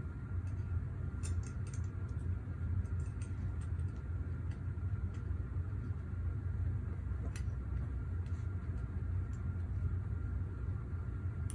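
Faint scattered small clicks and ticks of tools and metal parts being handled during a rifle-stock install, over a steady low hum.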